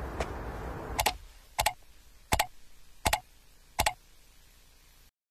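Footsteps of a man walking: five sharp, evenly spaced steps, about one every three-quarters of a second. A faint steady background fades out shortly before the first step, and the sound cuts off abruptly near the end.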